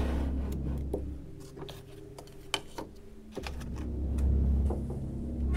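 A low steady drone that cuts out for about two seconds in the middle, with scattered small clicks and taps of an object being handled on a table, the sharpest about two and a half seconds in.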